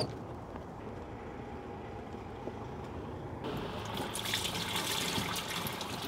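A sharp click, then about three and a half seconds in liquid starts pouring steadily: the black-water contents of a camping-car chemical toilet cassette being emptied through its spout into a service-point disposal drain.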